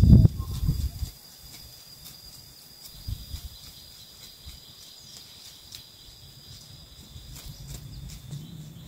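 Insects in the rice field keep up a steady high-pitched drone, with scattered light clicks over it. A louder low rumble fills the first second.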